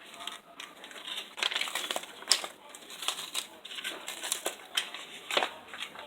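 Paper wrapper of a refrigerated cinnamon-roll tube crinkling and crackling as it is handled and the rolls are pulled out, with scattered small clicks.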